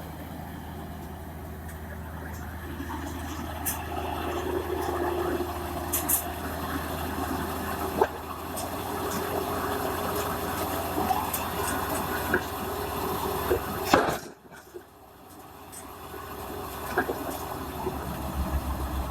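Piling rig's diesel engine running steadily, with scattered knocks and clanks of working machinery and a rushing, watery noise over it. It drops off suddenly about fourteen seconds in, then builds back up.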